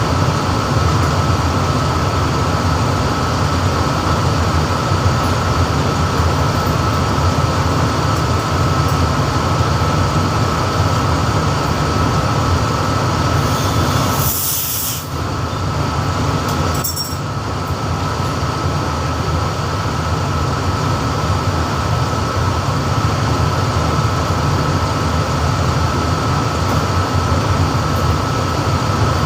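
Refrigeration machinery of an air-conditioning plant running with a steady loud drone and a constant high whine. About halfway through there is a short hiss, and a fainter one about two seconds later.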